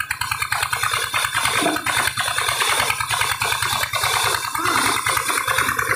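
Large belt-driven band saw running off an engine, with a fast, even engine beat under the saw's rattle as a log is pushed toward the blade.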